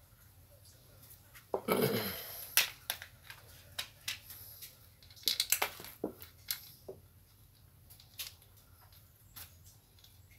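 Small metal clicks and clinks of screws and washers being handled while a pump is fitted onto a small sprayer engine, with a louder scrape about two seconds in and a quick run of clinks about halfway through.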